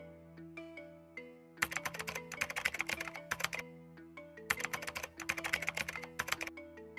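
Rapid keyboard typing sound effect in two bursts of about two seconds each, typed-text clicks, over soft background music of quick repeating notes above a low held tone.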